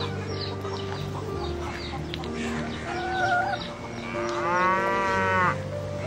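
Soft background music with sustained notes. A hen gives a short call about halfway, and near the end a cow moos once, rising then holding for about a second before stopping abruptly.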